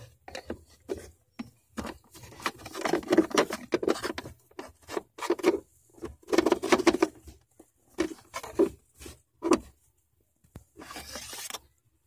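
Hands working at the plastic cabin air-filter housing under a car's dashboard: irregular taps, scrapes and rubbing, with a longer rustle about eleven seconds in.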